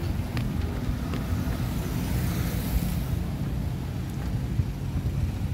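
Low, steady rumble of road traffic.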